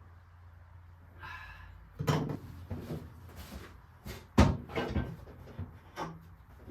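A series of separate clunks and knocks, as of metal car parts and tools being handled, the loudest about four and a half seconds in, over a low steady hum.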